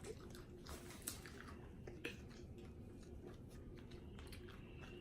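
Faint chewing of tortilla chips and dip, with a soft crunch about a second in and another about two seconds in.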